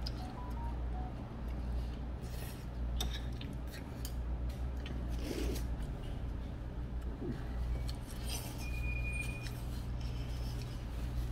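Steady low hum of the room, with a few soft paper rustles from a tissue being handled and light clicks. A brief high steady tone sounds about three-quarters of the way through.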